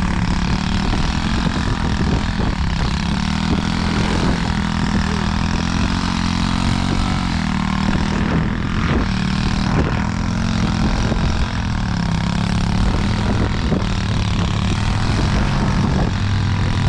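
Small single-cylinder pit bike engine running, its revs rising and falling with throttle, with a steady rush of noise over it.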